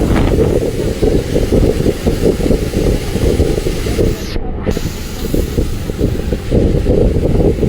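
Bus on the move: a loud, steady low rumble of engine and road, with wind buffeting the microphone.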